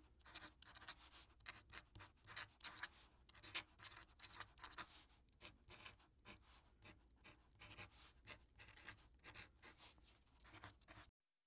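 Faint scratching of a chisel-tip highlighter marker on paper, many short irregular strokes as letters are written. It stops abruptly just before the end.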